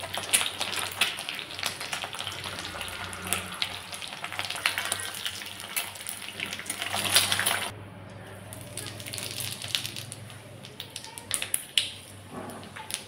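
Hot oil sizzling and crackling in a kadai as halved boiled eggs fry. The sizzle drops to a quieter crackle about eight seconds in.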